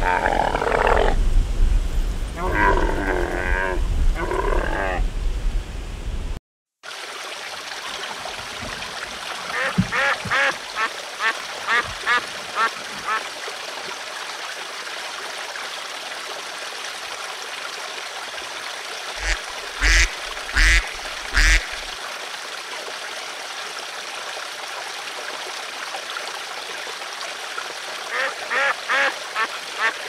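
Camel grunting and groaning in a few drawn-out calls over a low rumble. After a break, a flock of mallard ducks quacks over the steady rush of flowing water: runs of quick quacks at about three a second, a few loud quacks about two-thirds of the way in, and another run near the end.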